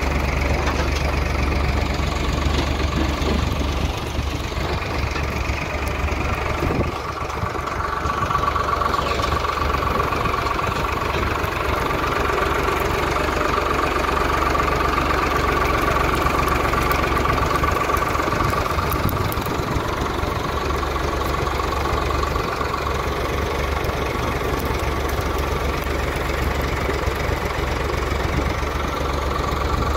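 Tractor diesel engine running steadily, with a brief drop in level about seven seconds in.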